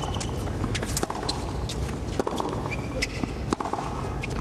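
Tennis rally on a hard court: sharp pops of racket strings on the ball, with shoes scuffing and squeaking on the court between shots, over a steady crowd and broadcast background.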